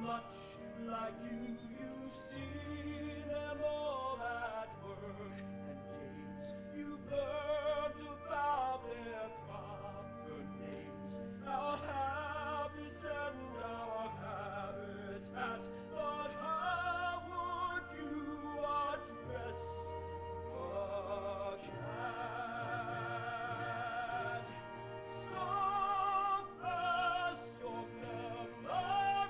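Musical-theatre solo: a male singer with a wide vibrato sings a slow, stately melody over orchestral accompaniment with long sustained bass notes.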